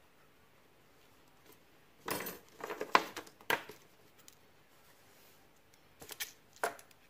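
Small metal audio plugs being handled, clicking and clinking against each other: a busy cluster of clicks about two seconds in, then a few sharper clicks near the end.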